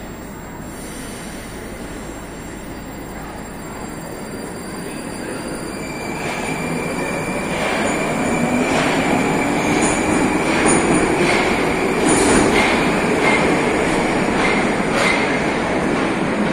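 Metro train pulling out of the station: its traction motors whine upward in pitch as it gathers speed, with a steady high squeal and the wheels knocking over rail joints, getting louder from about a third of the way in.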